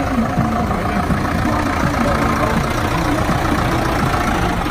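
Ebro Super 55 tractor's diesel engine running at low revs as the tractor creeps past.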